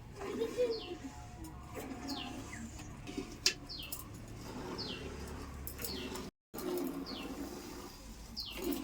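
A bird repeating a short, high, falling note about once a second, over a low, uneven murmur.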